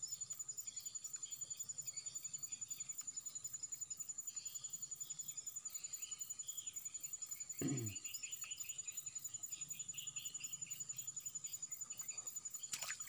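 Insects chirping in a fast, even pulse over a thin, steady high whine, with scattered chirping calls behind them. A brief falling voice sound about eight seconds in.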